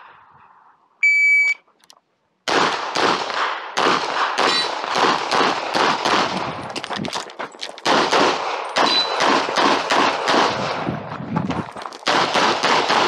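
A shot timer's start beep about a second in, signalling the start of the course of fire, then rapid semi-automatic pistol fire from about two and a half seconds on: quick strings of shots broken by a few short pauses.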